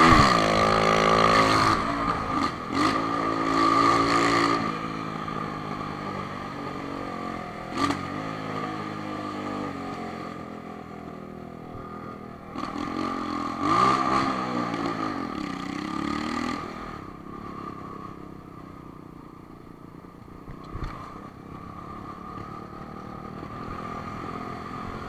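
Honda CB1000 motorcycle engine running under way, revving up and down several times, with a steady high whine throughout. The biggest rev-ups come in the first few seconds and again about halfway through, and it runs quieter near the end.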